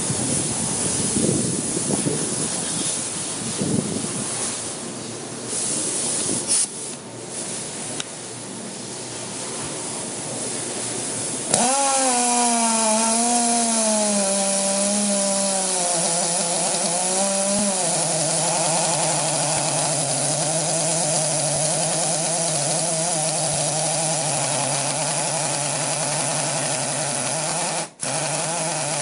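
GISON GP-26DH pneumatic SDS-plus rotary hammer drill starting up about twelve seconds in and boring a 22 mm bit into concrete, running with a steady whining pitch. Its pitch sags for a few seconds as the bit bites and then settles. Before it starts there is a rushing, wind-like noise.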